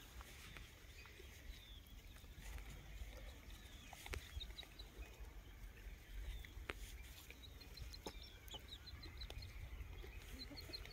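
Young desi chickens peeping faintly: short high chirps in small runs of three to five, with a low rumble underneath.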